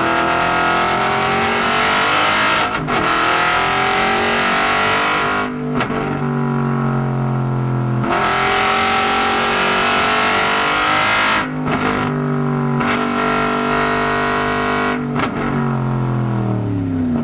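Aston Martin Vantage GT4's V8 engine heard from inside the cabin, accelerating hard through the gears. Its pitch climbs and is cut briefly at each of several gear changes, then falls near the end as the car slows.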